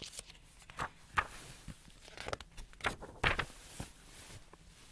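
Paper rustling and brushing as a hand handles and turns the pages of a picture book, a series of short rustles with the loudest a little past halfway.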